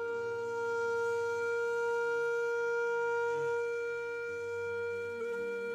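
Background music: a flute-like wind instrument holds one long steady note, with a slight break near the end.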